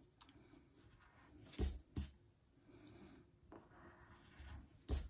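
Faint scratching of a crayon drawn across paper in curved strokes, with three short knocks, the loudest just before the end.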